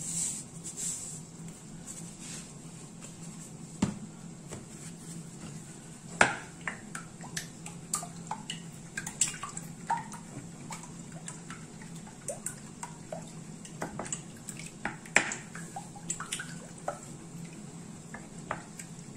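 Wooden spoon beating raw eggs and salt in a ceramic bowl: irregular wet taps and knocks of the spoon against the bowl, the sharpest about six seconds in and again about fifteen seconds in, over a steady low hum.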